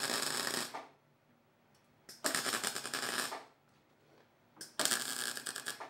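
MIG welder laying short welds on a steel go-kart frame: three bursts of crackling arc, each about a second long, with quiet pauses between.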